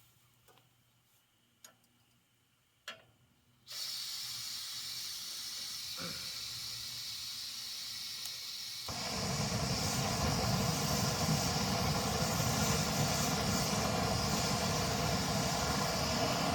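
Backpacking gas stove: a few light clicks, then gas hissing from the opened valve about four seconds in, and the burner lighting about nine seconds in, running louder and steady under a pot of water being brought to the boil.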